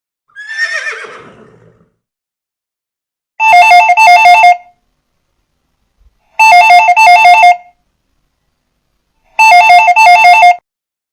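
A horse whinnies once, falling in pitch. Then a modern phone ringtone rings three times, each ring about a second of rapidly alternating two tones, repeating every three seconds.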